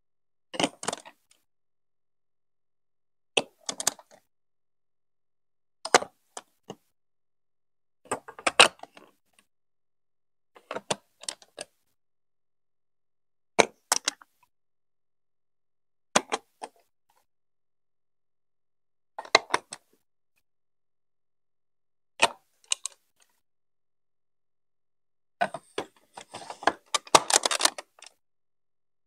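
Large plastic building blocks being pressed together and set down on a build: short clusters of clicks and clacks every two to three seconds with silence between, and a longer clatter of handling near the end.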